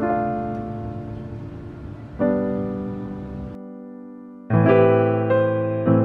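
Background piano music: slow chords, each struck and left to ring out.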